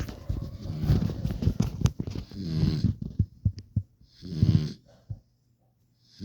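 A puppy snoring: two drawn-out, pitched snores about two and a half and four and a half seconds in. Before them there are a couple of seconds of crackling and rustling.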